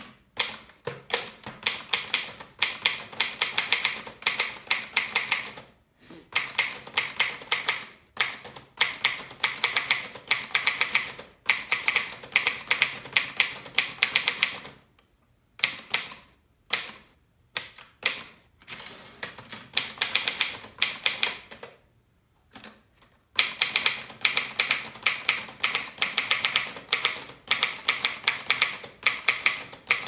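Manual portable typewriter being typed on quickly: rapid runs of clacking keystrokes several seconds long, broken by a few short pauses.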